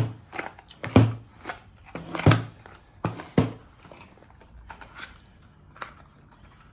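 Padlocks being handled and set down on a hard surface: a series of sharp knocks and clacks, loudest in the first three and a half seconds, followed by a few fainter ticks.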